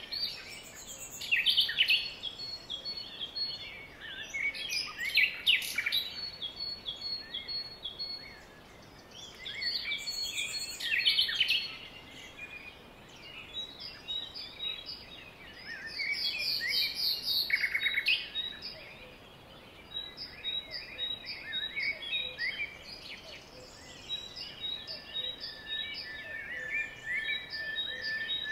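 Several wild birds singing and calling, with quick chirps and rapid trills coming in loud clusters every few seconds over a faint hiss, and one long steady whistle near the end.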